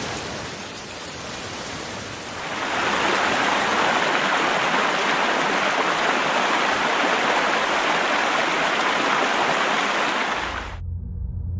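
Floodwater rushing in a steady, loud hiss-like roar that grows louder about two and a half seconds in. Near the end it cuts off abruptly and a low rumble takes its place.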